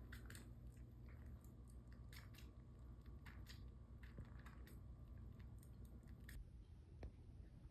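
Faint, irregular little clicks of a kitten chewing and sucking on its own paw, over a low steady hum; the clicks thin out about six seconds in.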